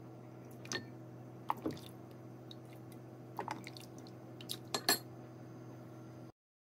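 A metal ladle scooping and pouring beef bone broth in a stainless steel stockpot: a few light clinks of ladle against pot and the liquid dripping and splashing, over a steady low hum. The sound cuts off shortly before the end.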